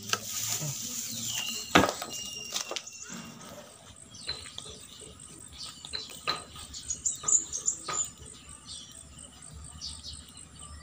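Insects chirping in a steady, high, finely pulsed trill, with scattered short clicks and snaps. A few sharper knocks come in the first couple of seconds.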